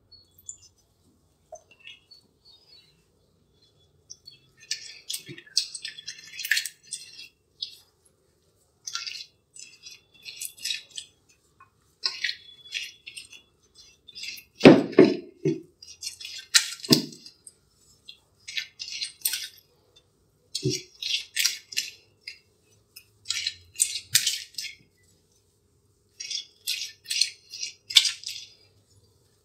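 Silicone spatula mixing butter, sugar and egg into a batter in a cut-glass bowl: bursts of quick wet scraping and clicking strokes against the glass, with a few dull knocks, the loudest about halfway through.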